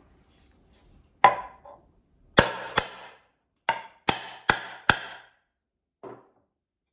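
A steel-headed hammer strikes a small metal fitting in the centre hole of a plywood board, with eight sharp knocks, each ringing briefly. The first two knocks are the loudest and the last is faint.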